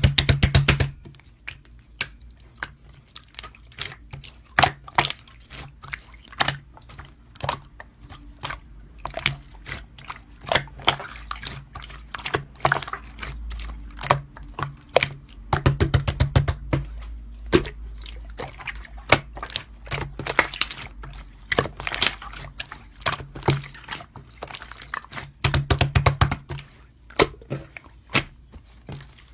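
Slime being squeezed, pressed and stretched by hand, giving a continuous run of irregular sticky pops and crackling clicks, with louder, denser bursts at the start, about halfway and near the end.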